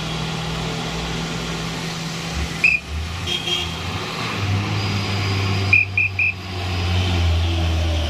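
Heavy diesel truck or bus engine running low and steady, growing louder in the last seconds as the vehicle draws near on the bend. A short high beep comes near three seconds in, and three quick high beeps come about six seconds in.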